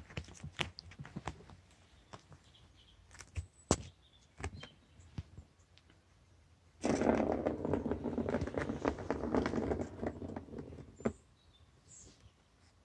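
Kitten play with a feather wand toy on carpet: scattered light taps and clicks, then a loud rustling scrape lasting about four seconds, starting about seven seconds in.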